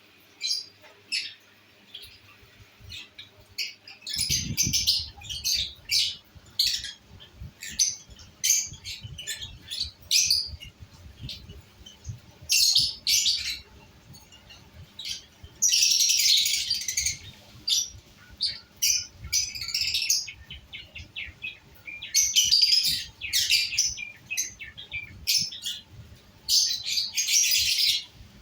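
Lovebirds chirping in quick, irregular runs of short high calls, broken by a few longer, harsh squawks.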